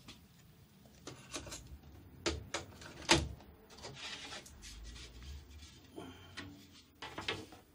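Light wooden knocks and rubbing as a long wooden board is handled and shifted on a miter-saw table, with a few louder knocks, the main ones about two and three seconds in and a pair near the end.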